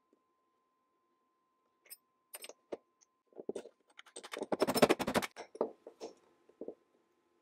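Small metal clicks and rattles of a camera quick-release clamp being worked apart by hand. They start about two seconds in, are thickest around the middle, and thin out near the end.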